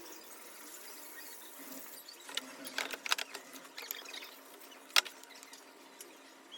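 Scattered light clicks and taps of a single-bevel sashimi knife and wet whetstones being handled, with one sharp click about five seconds in; a soft hiss of water fills the first two seconds.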